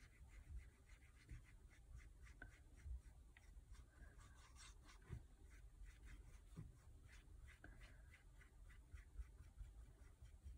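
Faint, quick scratchy strokes of a small paintbrush working white acrylic paint onto a bare wooden cutting board, several strokes a second.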